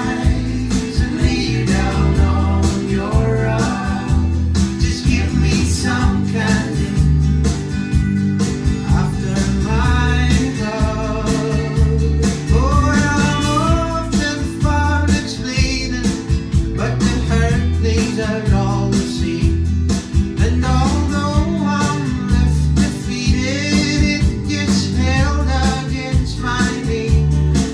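Recorded pop song played loud through a hi-fi system of Focal 1038 Be floor-standing speakers driven by McIntosh MC452 power amplifiers: a man singing over guitar with a steady bass line.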